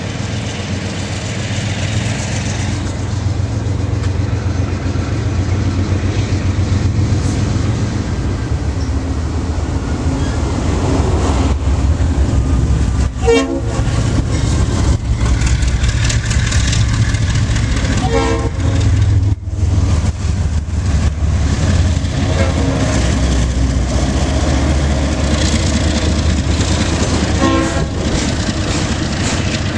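A train running past with a heavy, steady low rumble, broken by brief high-pitched tones about a third of the way in, just past halfway, and near the end.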